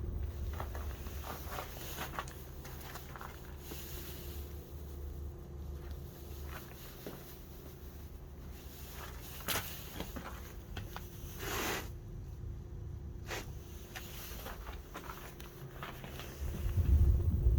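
Fujitsu air-to-water heat pump outdoor units running: a steady low hum with a constant mid-pitched tone from the fan and compressor. Scattered light clicks and scuffs throughout, and a brief louder rush about two-thirds of the way through.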